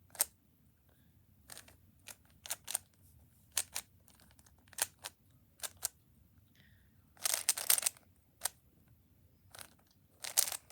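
Plastic speed cube being solved by hand: its layers turn with sharp, irregular clicks. There is a quick flurry of turns about seven seconds in and a shorter one near the end.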